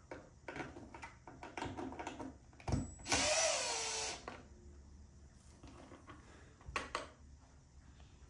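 A power drill whirring for about a second, around three seconds in, as it backs a screw out of the back of a steering wheel, its pitch rising and then falling. Small clicks and handling of the parts come before and after.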